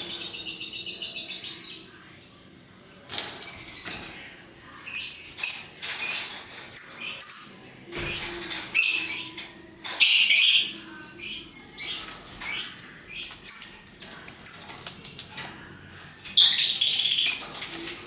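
Lovebirds calling: repeated bursts of shrill, high chirps and chatter, with a short lull about two seconds in and the loudest bursts in the middle and near the end.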